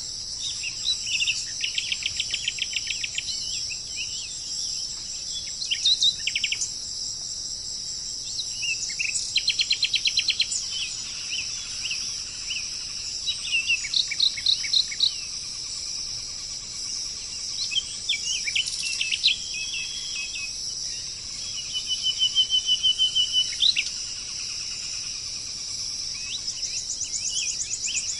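Small songbirds singing: short phrases of rapid trills and chirps, repeated every few seconds, over a steady high-pitched buzz like insects.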